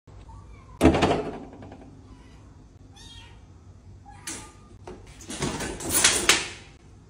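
Clear acrylic panels of a small pet pen knocking and clattering on a tile floor as they are pushed open from inside, with a cat meowing. There is one sharp knock about a second in and a run of louder clatters near the end.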